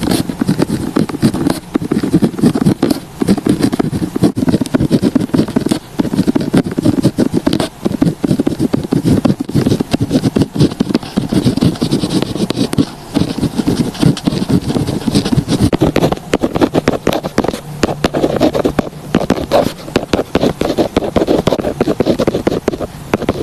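Pen or pencil writing on paper close to the microphone, a continuous run of quick scratching strokes.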